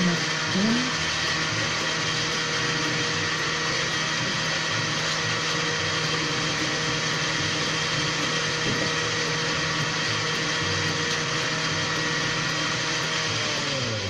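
Glass-jar electric blender running steadily at speed, a steady motor whine, blending a liquid shake. Near the end it is switched off and the motor winds down, its pitch falling away.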